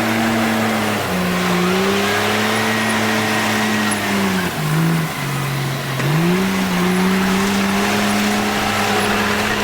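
Komatsu bulldozer's diesel engine running hard while pushing dirt. Its pitch sags briefly about a second in, drops well down a little after the middle, then climbs back up.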